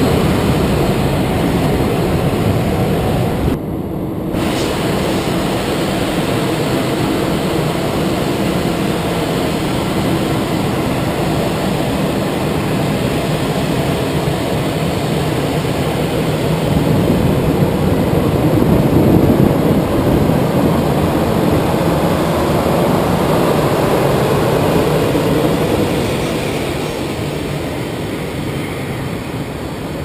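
Steady rumble of jet aircraft engines. It dips briefly about four seconds in, swells a little past the middle and eases off near the end.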